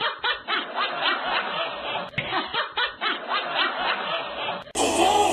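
A person laughing in a steady run of short chuckles, about three or four a second. Music cuts in abruptly near the end.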